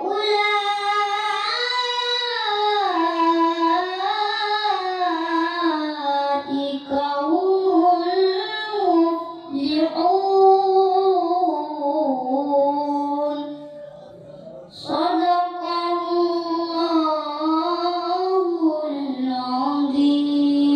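A young boy chanting Qur'an recitation (tilawah) into a microphone: long, ornamented melodic phrases in a high child's voice, with a breath pause about fourteen seconds in before the next phrase begins.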